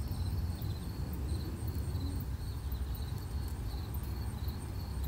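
Insects chirping outdoors in a steady, evenly pulsed high-pitched trill, over a constant low rumble.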